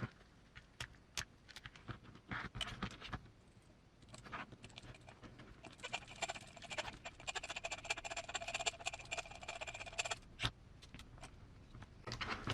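Scattered light clicks and taps of small tools and parts being handled during RC axle work. From about halfway in, a small tool buzzes for roughly four seconds with steady tones and a fast run of clicks.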